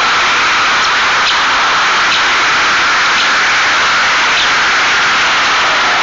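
Steady, loud rushing hiss, like running water or rain, with a few faint short bird chirps scattered through it.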